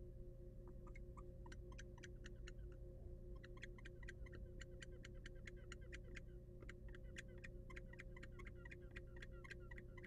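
Faint, rapid, irregular ticking, several ticks a second with a short lull about three seconds in, over a steady electrical hum.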